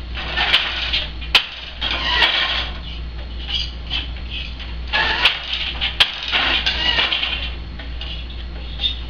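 Hand weaving on a wooden countermarch loom: boat shuttles slide through the warp shed with a rushing hiss, and four sharp wooden clacks sound as a shuttle is caught and set down. A steady low hum runs underneath.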